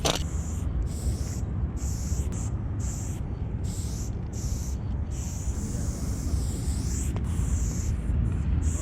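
Aerosol spray paint can spraying in short hissing spurts with brief pauses, including one longer spray about five to seven seconds in, over a steady low rumble.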